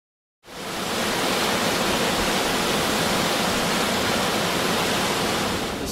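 Steady rush of river water, starting after a brief silence.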